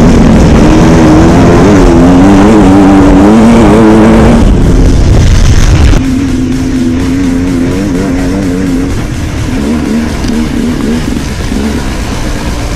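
Two-stroke dirt bike engine running hard, its pitch rising and falling as the throttle changes. The sound drops noticeably quieter about six seconds in.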